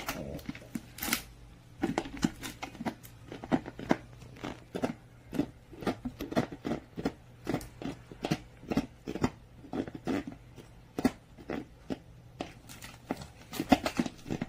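French bulldog biting and chewing at the cap of an empty plastic water bottle: a run of irregular clicks and crackles of thin plastic under its teeth, a few each second.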